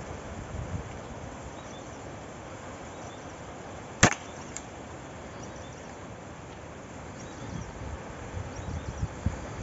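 A single sharp rifle shot about four seconds in, fired at a duck on the water, followed by a faint click about half a second later.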